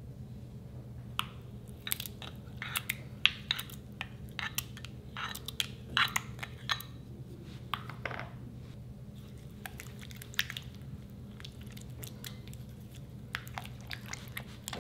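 Sharp clicks and crackles of slime ingredients and a plastic spoon working in a glass mixing bowl, thick through the first half and sparser later, over a low steady hum.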